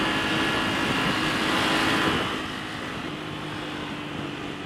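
Aprilia RS 660's parallel-twin engine running at road speed under a steady rush of wind. It is louder for the first two seconds, then eases off and settles quieter.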